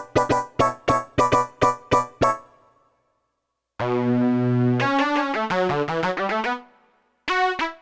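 Alesis Ion synthesizer playing Nord Stage–style keyboard patches. First a run of short, evenly repeated staccato notes, about four a second, that stops a little over two seconds in. After about a second of silence comes a held chord with a moving lower line, then a short chord near the end.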